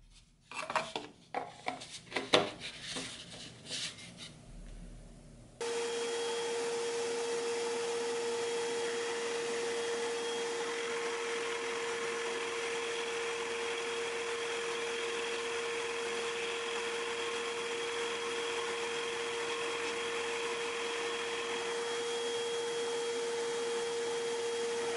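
A few knocks and clicks as the plastic dust shroud is fitted onto the drill press. Then, starting suddenly about five seconds in, a small shop vac runs with a steady whine while a Delta 17-900 drill press bores holes in a wooden board with a Forstner bit, the vac drawing the chips up through the Drillnado collector.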